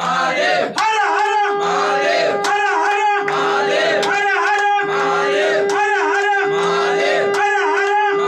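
Voices chanting a devotional song together in a short repeating melody over a steady held drone note, with a sharp strike about every three-quarters of a second, as at a Hindu aarti with a lamp being waved.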